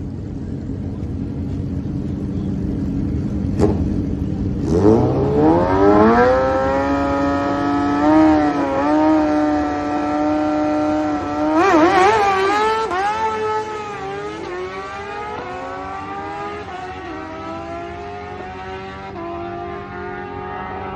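A drag-race vehicle's engine idling, then launching at full throttle about five seconds in. Its pitch climbs, dips briefly twice at gear changes, then falls and fades as the vehicle pulls away down the strip.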